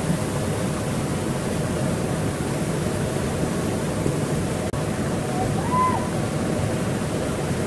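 Steady rush of river water. About six seconds in comes one short tone that rises and falls.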